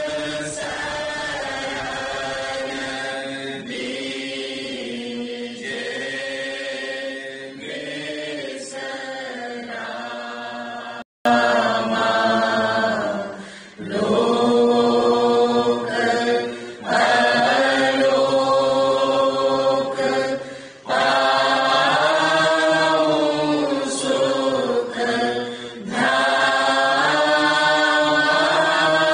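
Devotional chanting by voices singing together in unison, with long held notes. A brief break comes about eleven seconds in, and after it the chanting is louder.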